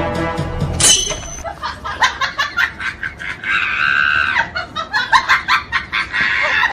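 Comedy sound effect: a sudden high squeak, then a quick run of shrill cackling calls at about three or four a second, with one drawn-out squeal in the middle. The end of a music cue is heard before the squeak.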